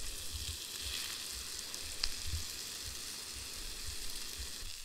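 Tiger trout and hash browns frying in butter in a pan, a steady sizzle with a small pop about two seconds in, as the hash browns start to crisp.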